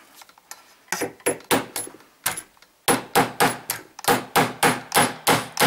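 Light hammer taps knocking a fiber-optic rear sight sideways into the dovetail of a Glock slide, each tap with a short metallic ring. A few scattered taps come first, then a steady run of about ten, roughly three a second.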